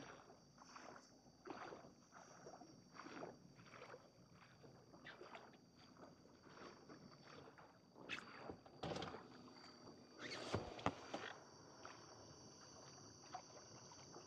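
Faint sloshing and splashing of floodwater in irregular strokes, with a few louder splashes about eight to eleven seconds in. A steady high insect chirring runs underneath.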